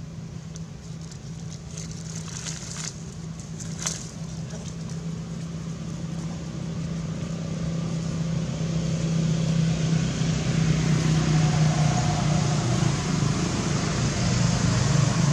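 A motor vehicle's engine running with a steady low hum that grows louder through the second half, with a few short clicks in the first few seconds.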